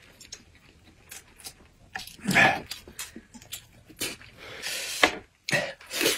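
Close-miked eating sounds of noodles eaten with chopsticks: scattered small clicks and mouth noises, with short breathy sounds. The longest breathy sound, about four seconds in, comes as the hot noodles are blown on.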